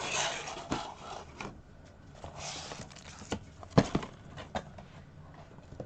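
Handling of plastic packaging and miniatures: two stretches of rustling, then several sharp plastic clicks and knocks, the loudest just under four seconds in.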